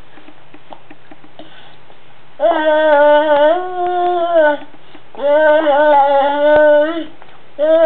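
Yummy noises of enjoyment while eating spaghetti: three long, sung-out, humming vocal sounds, each held a second or two with slight wobbles in pitch, the first starting about two and a half seconds in.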